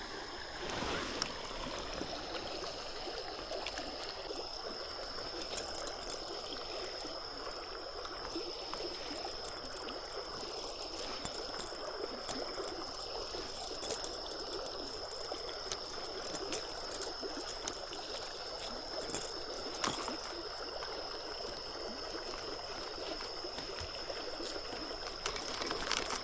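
River water flowing steadily, a continuous rushing stream, with a steady high-pitched tone and scattered faint clicks over it.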